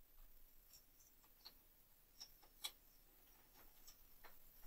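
Near silence: room tone with a few faint, scattered clicks, the clearest about two and a half seconds in.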